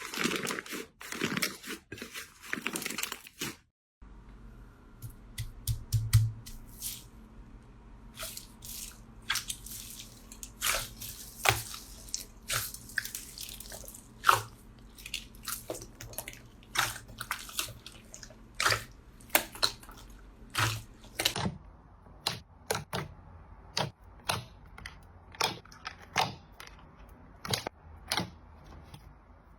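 Slime being worked by hand: dense crunching for the first few seconds, then, after a short break, a long run of sharp irregular clicks and pops as the slime is pressed and poked, over a faint low hum that stops about two-thirds of the way through.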